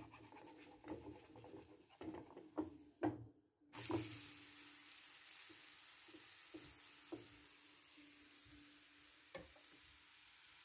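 Thin crepe frying in a pan: a spatula scrapes and taps against the pan in irregular knocks for the first few seconds. About four seconds in, a steady faint sizzle starts abruptly and carries on with a few light ticks.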